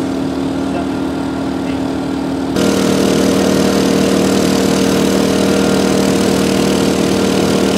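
A small engine running steadily at constant speed, a hum with fixed tones. About two and a half seconds in it jumps abruptly louder, with added hiss and higher tones.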